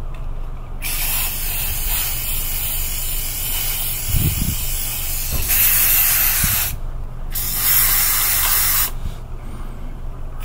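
Aerosol can of polyurethane sealer spraying in three bursts, the first about four and a half seconds long and the next two shorter, over a steady low rumble.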